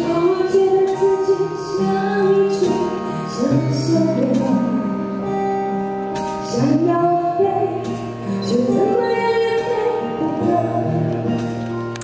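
A woman singing a Mandarin pop song live into a handheld microphone, backed by a live band. Her phrases slide up into long held notes over steady band chords and light cymbal strokes.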